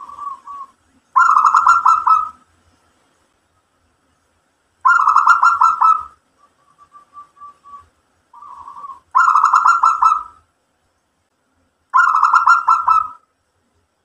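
Zebra dove (perkutut) singing: four loud, rapidly trilled cooing phrases of about a second each, a few seconds apart, with soft short coos in between.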